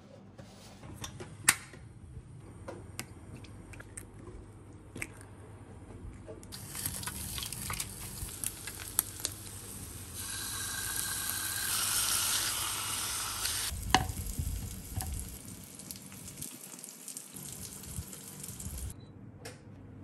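Light clicks and knocks of plastic containers being handled, then meat patties and eggs sizzling in a frying pan. The sizzle swells for a few seconds around the middle as sauce is poured over the patties, and ends with a sharp knock.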